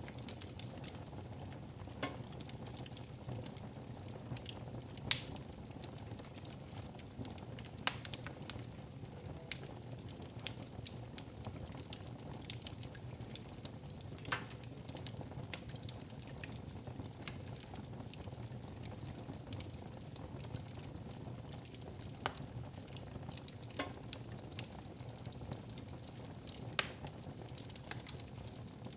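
Wood fire crackling in a fireplace: irregular small pops and snaps over a steady low rush, with one sharper pop about five seconds in.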